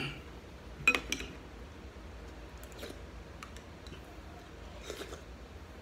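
Eating sounds: a couple of sharp clicks of dishware about a second in, then a few fainter ticks and soft chewing, over a low steady hum.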